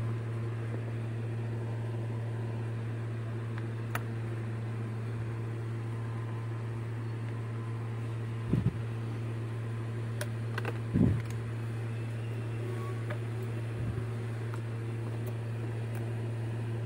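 Steady low electrical hum with a light fan hiss from the powered-on test PC, with a few faint knocks and clicks of handling, the loudest about 8.5 and 11 seconds in.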